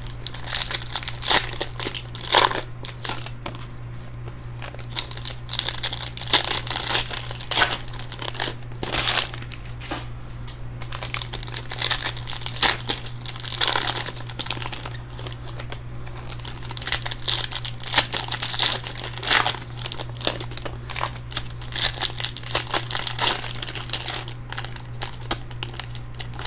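Foil wrappers of Panini Select trading-card packs crinkling and tearing as the packs are ripped open by hand, in repeated irregular bursts.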